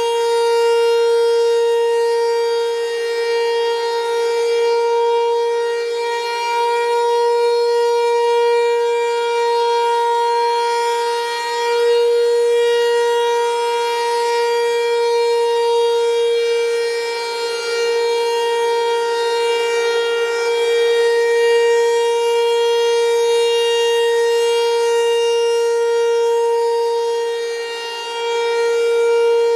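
Federal Signal Equinox electronic outdoor warning siren sounding the Alert signal: one steady, unchanging tone with a rich stack of overtones, swelling and fading slightly in loudness.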